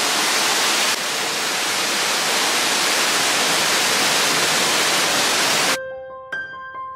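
Steady, loud rush of a waterfall pouring into its pool. About six seconds in it cuts off abruptly, replaced by light music of bell-like mallet notes.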